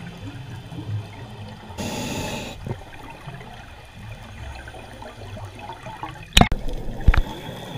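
Underwater scuba ambience: bubbles from divers' regulators rise and gurgle, with a short hissing burst of exhaled bubbles about two seconds in. Two sharp knocks come near the end, the first the loudest.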